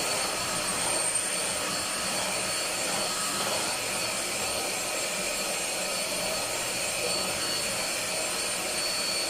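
Deerma vacuum cleaner running steadily: an even rush of air with a high, constant motor whine on top.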